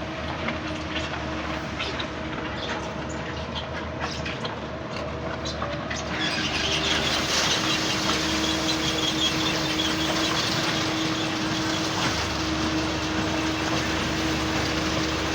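Concrete batching plant machinery running with a steady motor hum and a few clicks. About six seconds in it grows louder, with added rattling, hissing noise.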